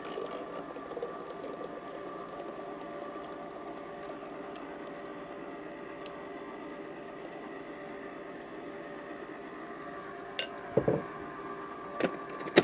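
Breville compressor ice cream maker running and churning the custard: a steady mechanical hum with several held tones. A few knocks and a low thump near the end.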